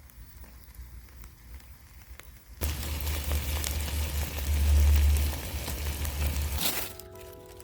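A wood fire crackling and hissing: faint at first, then suddenly much louder about a third of the way in, with dense pops over a low rumble. Light background music begins near the end.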